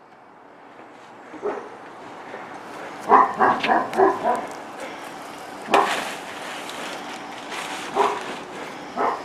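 A dog barking: a quick run of short barks about three seconds in, then a few single barks spaced out after it.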